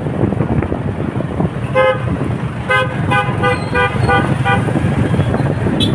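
A vehicle horn tooting: one short toot a couple of seconds in, then a quick string of about six short beeps. Underneath is a steady rumble of road traffic and wind on the microphone.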